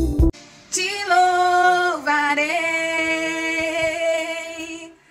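A woman singing a Portuguese Christian worship song (louvor), holding long notes, with no instruments heard.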